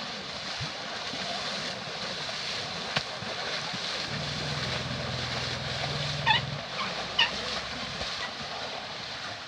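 Water splashing steadily, with a low steady hum for a couple of seconds in the middle and two short high squeaks about a second apart in the second half.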